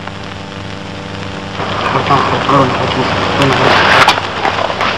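Worn old film soundtrack: a steady low hum, then about one and a half seconds in a louder rain-like hiss with crackling clicks and faint voices under it.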